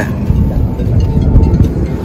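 Music with most of its weight in the bass.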